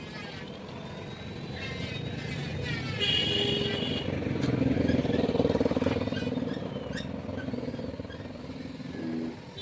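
A motor vehicle, likely a motorcycle, passing close by, building to its loudest about halfway through and then fading.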